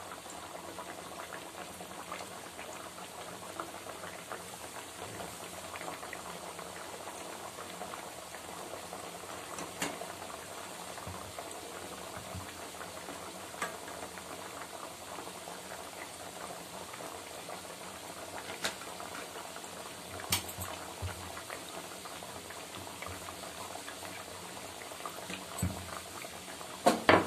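Sweet wheat-dough puris deep-frying in hot oil: a steady bubbling sizzle, with a few scattered clicks and a couple of louder knocks near the end.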